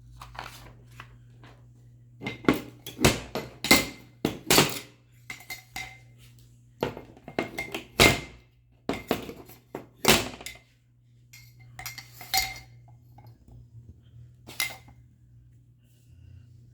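Aluminium folding camping table being handled: its metal legs and frame clank and click against each other in irregular clusters of sharp knocks with a slight metallic ring.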